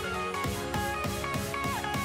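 Instrumental background music with a steady beat and a melody of short held notes.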